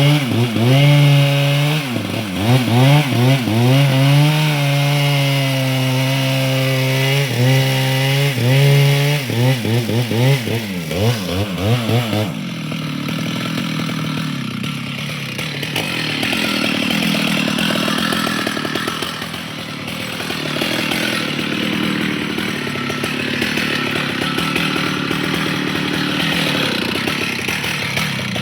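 Chainsaw running under load while cutting wood, its engine note repeatedly sagging and picking back up as it bites into the cut. About twelve seconds in, the clear engine tone gives way to a rougher, noisier sound that lasts to the end.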